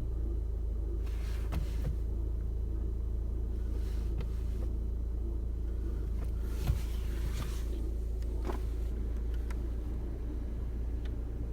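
Volkswagen Passat B7 running with a steady low rumble, broken by several short noisy swells and a few faint clicks.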